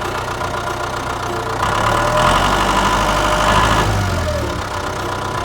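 Hay baler's engine running steadily, getting louder about two seconds in and easing back before the end.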